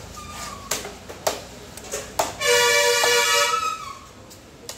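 A large knife chopping fish on a wooden log block, with about five sharp knocks. Midway a vehicle horn sounds one steady blast of over a second, the loudest sound.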